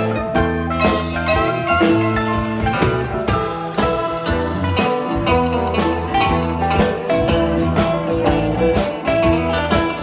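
Band playing a blues-rock number: guitar leading over bass and drums with a steady beat.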